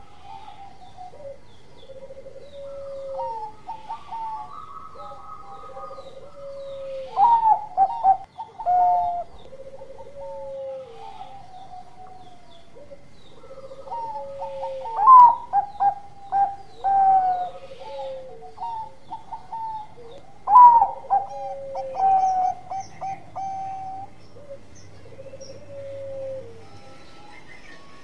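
Bangkok-line zebra dove (perkutut) cooing: a low drawn-out coo repeats every two to three seconds, and louder runs of quick staccato coos come about seven, fifteen and twenty seconds in.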